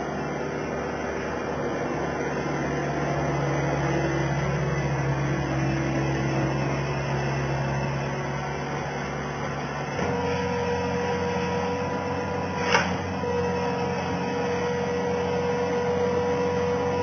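Skid steer loader engine running steadily, its pitch shifting slightly partway through, with one sharp knock about two-thirds of the way in.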